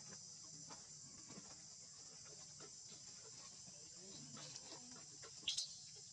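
Faint, steady high-pitched buzz of insects, with scattered soft rustles and a single short high squeak about five and a half seconds in.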